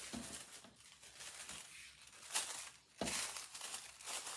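Thin paper sewing pattern pieces rustling and crinkling as they are handled, folded and unfolded, with one sharp crackle a little past halfway and louder rustling near the end.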